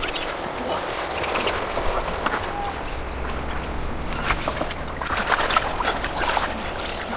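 Water splashing and sloshing in a shallow rocky stream as someone wades and gropes in it with her hands: irregular splashes over a steady hiss, busier in the second half, with a few short high bird chirps around the middle.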